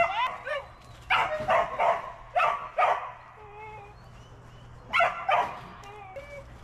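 A dog barking in quick runs of short barks: a few right at the start, a run of about six between one and three seconds in, and another run about five seconds in.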